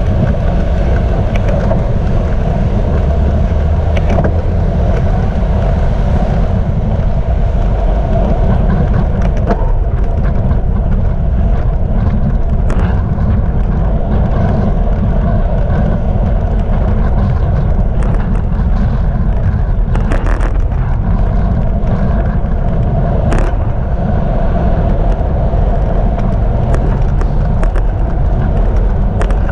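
Steady, loud wind and road rumble on a GoPro's microphone while riding a bicycle in city traffic, with cars running alongside and a few faint clicks.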